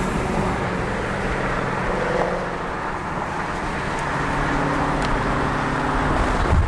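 Car cruising at highway speed, heard from inside the cabin: steady road noise with an even engine hum.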